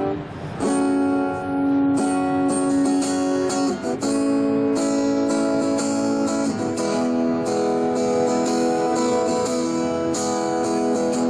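Acoustic guitar strumming sustained chords, starting about half a second in after a brief pause.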